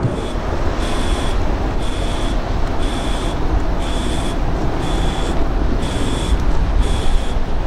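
Distant jet noise from a twin-engine F-15 fighter flying past. It is a steady, deep roar that swells slightly near the end. A short high-pitched chirp repeats about once a second over it.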